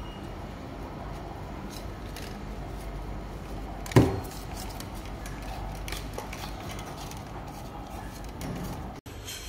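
Stainless-steel tube sections of a shower shelf pole being handled and screwed together: light metallic clicks and scrapes, with one sharp knock about four seconds in, over a steady low background noise.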